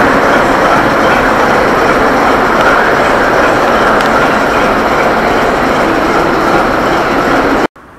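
ChME3 diesel shunting locomotive running while standing at the platform: a loud, steady engine noise that cuts off suddenly near the end.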